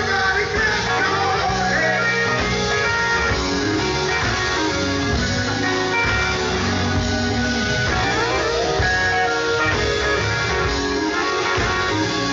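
A live gospel band playing at a steady loud level, led by electric guitar over bass guitar and drums.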